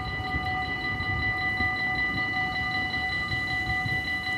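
Dutch automatic level-crossing warning bells ringing rapidly and without pause, several ringing tones pulsing together, as the barrier booms come down ahead of an approaching train.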